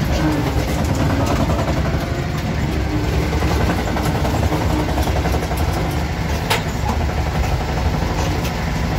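Yağmur YET 510 patpat (two-wheel tractor) engine running steadily under a load of more than a ton of stones, straining. A few sharp knocks come from the leaf springs striking under the weight on the rough track.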